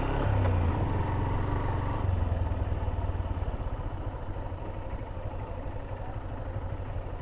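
Motorcycle engine running under load while riding through thick sand that is bogging the wheels. It is louder for the first couple of seconds, then eases off and falls somewhat quieter.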